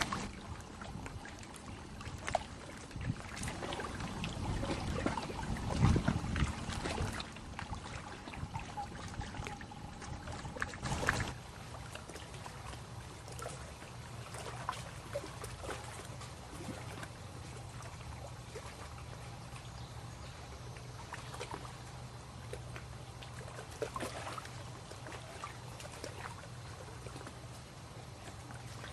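Lake water lapping and trickling at the shore, with irregular small splashes and knocks, loudest about six seconds in and again near eleven seconds. A steady low hum sets in just before the halfway point.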